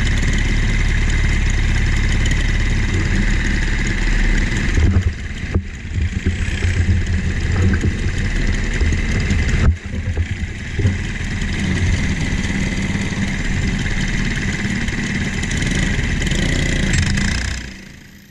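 Briggs & Stratton LO206 four-stroke kart engine idling close to the microphone, its level wavering unevenly in the middle. The sound fades out near the end.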